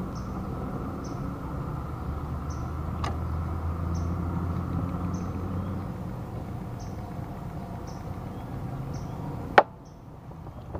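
Outdoor riverside background: a steady low rumble, with a short high chirp repeating about every three quarters of a second. A faint click comes about three seconds in, and a sharp click near the end.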